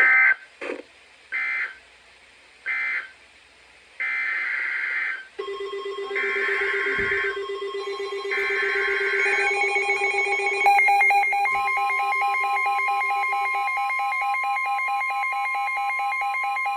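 Weather-radio emergency alert signalling: six raspy digital data bursts, three short then three longer, each separated by a gap. These are followed by steady alert tones, joined about halfway by a fast pulsing beep.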